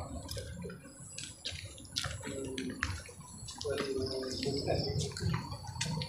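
Footsteps on a tiled floor and stairs: irregular light taps, about two or three a second, with a faint steady high tone behind them.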